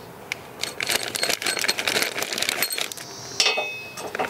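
A plastic hardware bag crinkling and metal hardware clicking and clinking as long zinc-plated carriage bolts and nuts are handled, with a short metallic ring about three and a half seconds in.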